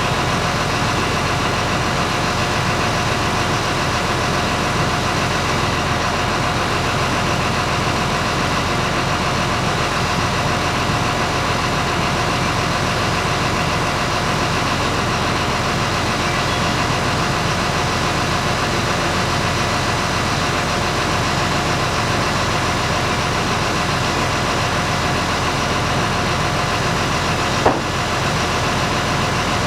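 An engine idling steadily, with a single sharp knock about two seconds before the end.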